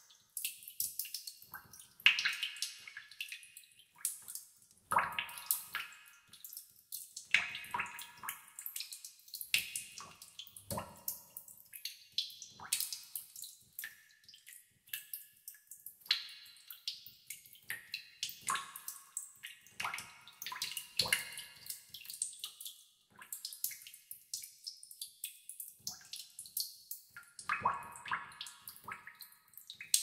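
Water drops falling into a tub of water, plinking in different tones and at uneven speeds: many small drips a second, with a louder, deeper drop every two or three seconds.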